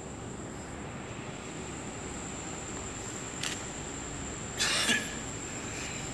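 Quiet stage room tone: a steady hiss with a thin high whine, a single click about three and a half seconds in, and a short, loud, breathy burst of noise shortly before five seconds.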